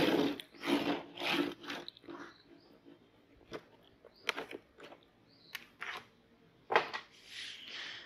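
A plastic food container full of popcorn is handled and its snap-on lid pried off: a run of crunchy rustles at first, then scattered clicks of plastic and a last rustle of popcorn shifting near the end.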